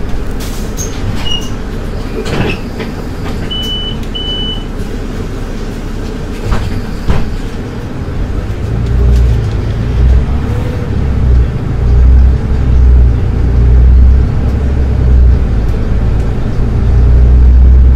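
Solaris Urbino 12 IV city bus heard from inside the cabin: a steady low engine and road rumble, with two short high beeps about four seconds in. From about eight seconds the engine's low rumble grows much louder and pulses, rising and falling.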